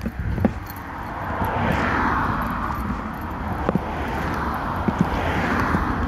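Vehicles passing by: a broad rush of noise swells and falls away about two seconds in, and a second pass builds near the end, with a few scattered knocks.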